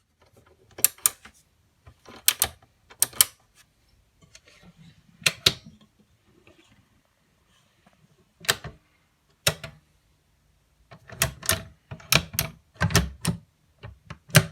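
Cabinet door push-to-open catch clicking: sharp clicks, often in quick pairs, as the door is pressed in and released, with a dense run of clicks and dull knocks of the door near the end.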